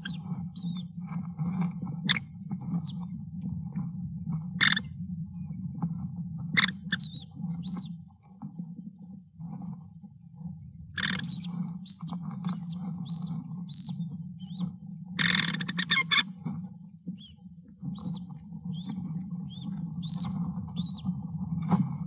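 Sounds from inside an American kestrel nest box while the female feeds a newly hatched chick. Many thin, high chirps are cut across by several sharp, scratchy bursts as she works at the prey and shifts on the nest; the loudest is a cluster of them about fifteen seconds in. A steady low hum sits underneath.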